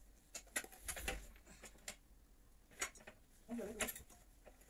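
Scattered light clicks and knocks from the metal frame of a folding manual treadmill being handled and tilted, with a voice heard briefly near the end.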